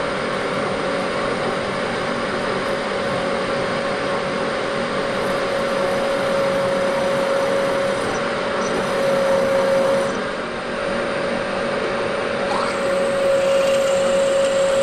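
Bridgeport milling machine running, spotting and then drilling a hole in a square metal bar held in the vise. A steady motor whine sits over the cutting noise, and the sound dips briefly about ten seconds in.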